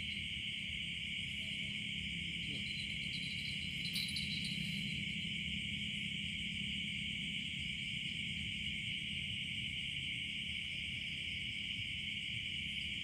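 A steady chorus of night insects, an unbroken high-pitched chirring with no pauses, over a faint low steady hum.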